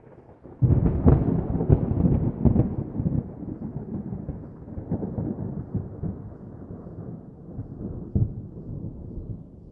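Thunder: a sudden crack about half a second in, rumbling and slowly dying away over several seconds, with a second sharp crack near the end.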